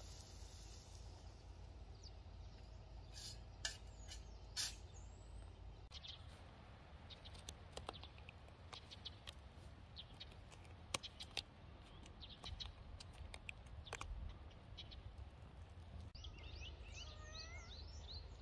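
Faint outdoor field ambience: a steady low rumble, scattered short clicks and chirps through the middle, and a quick run of chirping calls near the end.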